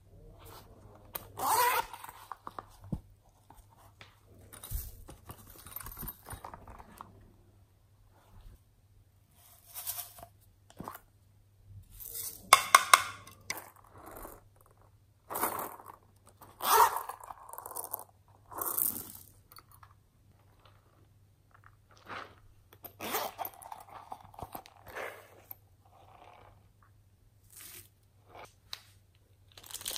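Hands handling plastic novelty pouches and adding beads, sequins and sprinkles to a glass dish of slime: separate bursts of rustling, crunching and rattling a second or two long, with short pauses between.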